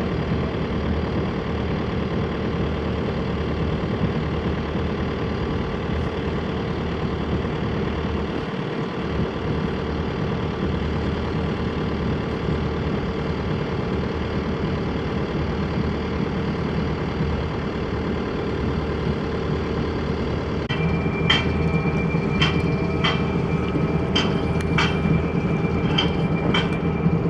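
A sailing yacht's inboard engine runs steadily as the boat motors along. At about three-quarters of the way through, the drone shifts in pitch and a run of sharp, ringing clicks joins it.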